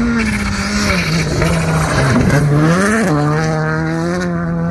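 Rally car engine running hard. Its pitch drops about a second in, wavers, then rises and falls sharply near three seconds in before running on steadily.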